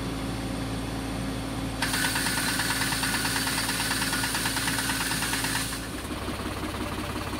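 Tractor engine running steadily while it drives a Vibrope EKO rope tree shaker on a walnut tree. From about two seconds in, the shaker runs for about four seconds, adding a loud rushing rattle of the shaken tree with a rapid regular beat, then stops and leaves the tractor and the shaker's drive running with a rhythmic throb.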